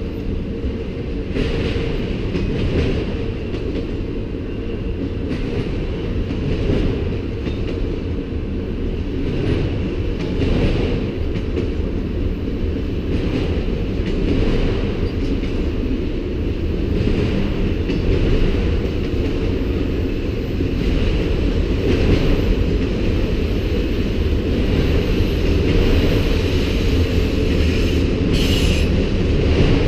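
Freight train of autorack cars rolling past, a steady low rumble with the wheels knocking over rail joints every second or two. A brief high-pitched wheel squeal comes near the end.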